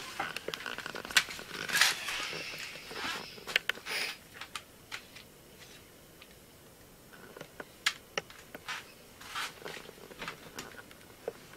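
Scattered clicks and rustling of objects and clothing being handled, busiest in the first few seconds, then a quieter stretch before a few more clicks.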